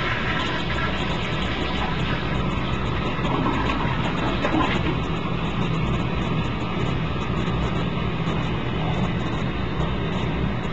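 Toilet flushing and refilling: a steady rush of running water.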